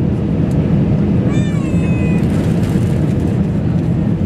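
Steady cabin noise of an Airbus A319 airliner on its descent to land: a deep, even rumble of engines and airflow. A brief high-pitched voice cuts through about a second and a half in.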